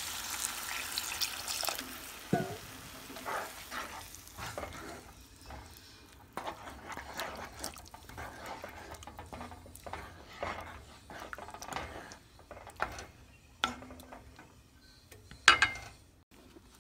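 Water poured into a hot pan of frying potato masala, hissing loudly for about two seconds and fading as the pan cools. Then a spoon stirring through the gravy, with scattered scrapes and knocks against the non-stick pan, the loudest knock near the end.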